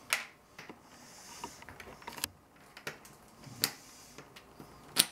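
Plastic LEGO bricks clicking and clattering as they are handled and pressed together: several separate sharp clicks at irregular spacing, the loudest near the start and near the end.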